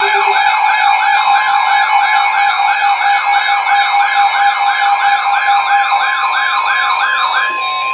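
Electronic yelp siren tone, sweeping quickly up and down about three times a second over a steady electronic tone. The sweeping stops just before the end, leaving the steady tone.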